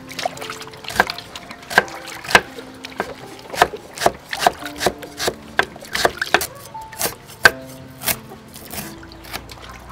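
Cleaver slicing lemongrass on a round wooden chopping board: sharp knocks of the blade on the wood, irregular at about two a second, over soft background music with long held notes.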